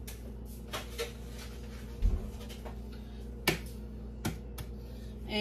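A few scattered sharp clicks and knocks, the loudest about two and three and a half seconds in, from eggs being handled and their shells tapped and cracked over a saucepan. A steady low hum runs underneath.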